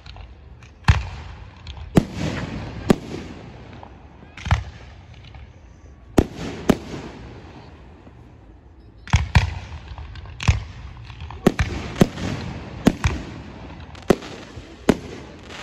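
Aerial firework shells bursting overhead: about fifteen sharp bangs at uneven intervals, some in quick pairs, with echoes rolling after them and a lull of about two seconds midway.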